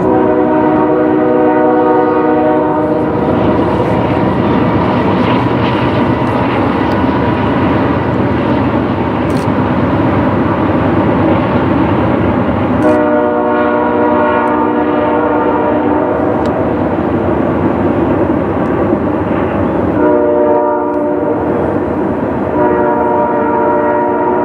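Nathan Airchime locomotive horn sounding a chord in four blasts: long, long, short, long, the grade-crossing signal. Underneath is the steady rumble and wheel noise of a passing train.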